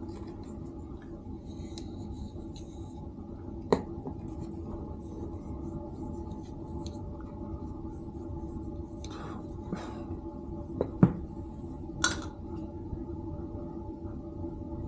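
Small hard clicks and knocks as PVC primer is handled on a metal workbench: dauber, primer can and pipe fittings being picked up, tapped and set down. There are a few sharp ones, the loudest a close pair a little past the middle, over a steady background hum.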